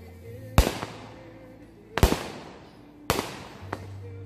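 Aerial fireworks going off: three sharp bangs a little over a second apart, each trailing off in a short echo.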